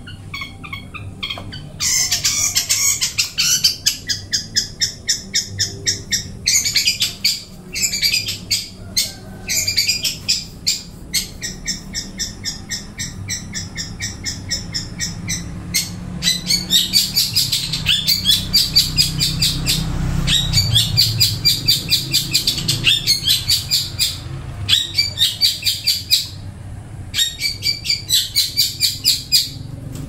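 Caged songbird singing in long phrases of rapid, repeated high notes, broken by short pauses.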